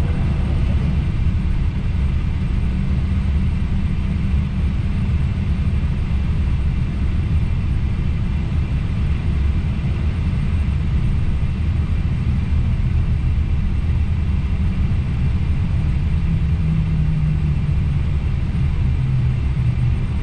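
Steady low rumble of an Airbus A320neo heard from inside the flight deck as the airliner taxis onto the runway and lines up with its engines at low power, with a faint steady high hum above it.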